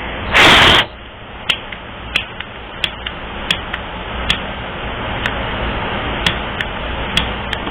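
Sage bundle being lit: a short, loud rush of air or flame about half a second in, followed by scattered light clicks.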